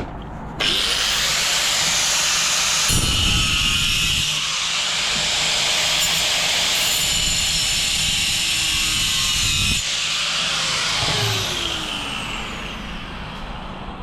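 A power cutting tool starts suddenly about half a second in and runs at full speed for about nine seconds, its pitch shifting about three seconds in as it works. It is then switched off and winds down with a falling whine.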